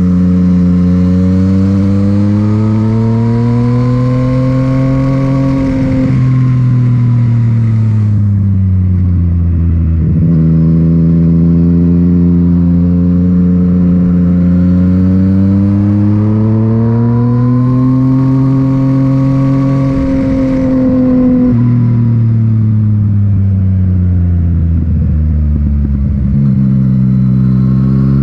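Yamaha MT-09's three-cylinder engine through an Akrapovic titanium exhaust while riding, revs climbing smoothly for several seconds and then dropping away, over and over as the bike accelerates and eases off.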